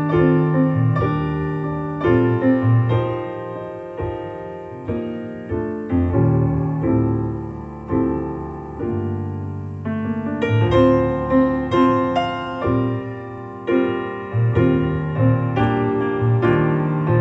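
Piano music played back through a hi-fi system of a Sony TA-2000 preamplifier, a Sony TA-N90ES power amplifier and Tannoy Gold 15-inch loudspeakers: a flowing run of struck notes and chords, each ringing and fading, growing quicker and brighter about ten seconds in.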